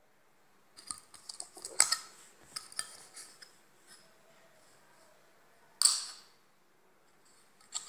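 Small metallic clicks and clinks of a coin being handled over a few seconds, then a single sharp crack about six seconds in, with another starting right at the end.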